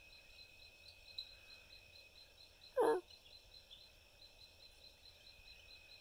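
Night insect chorus pulsing steadily, about five pulses a second, with one short, loud call from a barred owl about halfway through.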